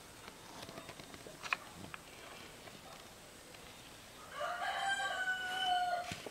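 A rooster crowing once, about four seconds in: one call of nearly two seconds that ends on a long held note.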